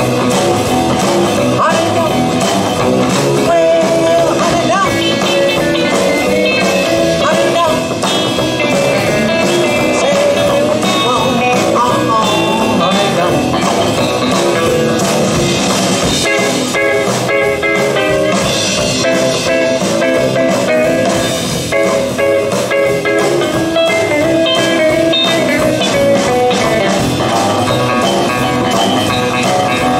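Live band playing rock and roll on electric guitars, upright bass and drum kit.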